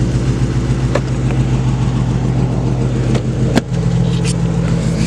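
Car engine idling steadily, with a few sharp clicks over it.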